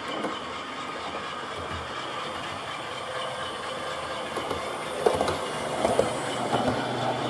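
Model railway train rolling along the track: a steady running noise with wheels clicking over the rail joints, turning to a louder run of clicks and clatter from about five seconds in as stock passes close by.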